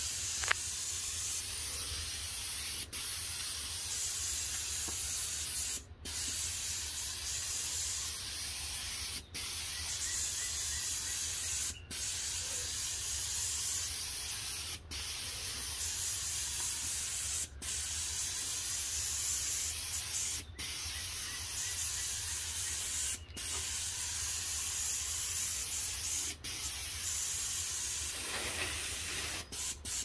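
Graco 395 Ultra airless paint sprayer hissing steadily as paint atomizes through a 310 FFLP tip. The hiss breaks off briefly about every three seconds as the gun trigger is released between passes. Near the end it is triggered in several quick short bursts.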